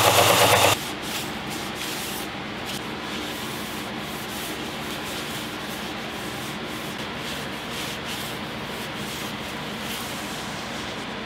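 A benchtop belt sander running, cut off abruptly less than a second in; then a cloth rag rubbing oil into a wooden axe handle, a steady hiss of cloth on wood made up of many short strokes.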